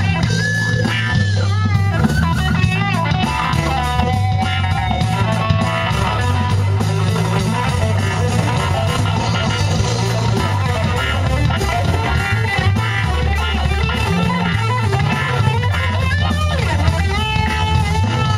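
Live funk-fusion band playing an instrumental passage: electric guitar with a lead line of bending, sliding notes over bass guitar and drum kit.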